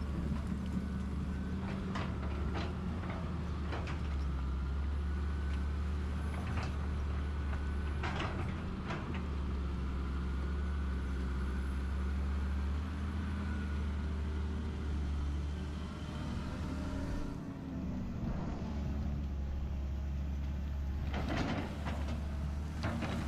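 Excavator's diesel engine running steadily under load, with a hydraulic whine that slowly rises and falls and scattered metallic knocks and clanks.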